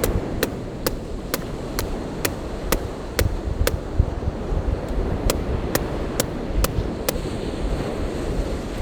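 A steady series of sharp knocks, about two a second, over the rush of wind and surf.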